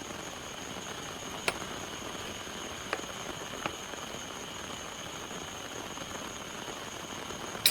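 Steady rain falling, an even hiss, with a few sharp ticks of drops or small knocks about one and a half, three and three and a half seconds in.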